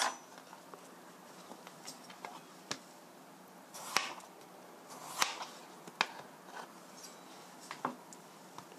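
Kitchen knife slicing through peeled raw potatoes into thick rounds: about half a dozen short, sharp knocks of the blade meeting the cutting board, a second or so apart.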